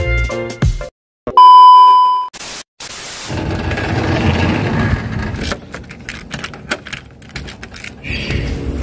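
A harmonica tune ends in the first second. After a brief gap comes a loud, steady electronic chime tone lasting about a second, then outdoor street noise with a low rumble and a run of footsteps in plastic slides on pavement.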